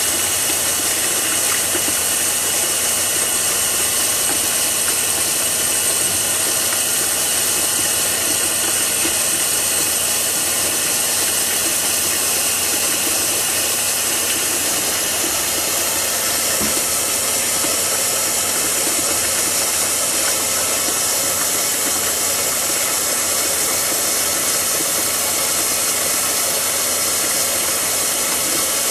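Steady, even hiss with a few faint steady tones in it, unchanging throughout; no separate sounds stand out.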